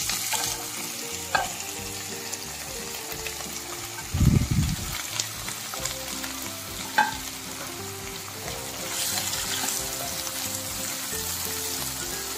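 Chopped onions sizzling and frying in hot oil in a nonstick kadai with curry leaves and green chillies, as a steady hiss. A couple of sharp clicks come through, and a low thud about four seconds in.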